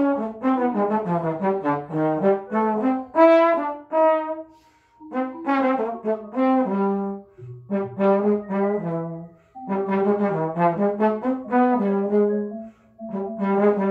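Trombone improvising a line of quick, short notes in phrases, broken by brief pauses.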